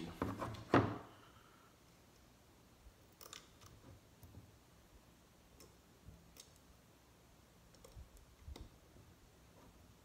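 Faint, scattered small clicks and taps of a hand tool and screws against a machined billet-aluminium shift knob as its mounting screws are driven in by hand, with one louder knock just under a second in.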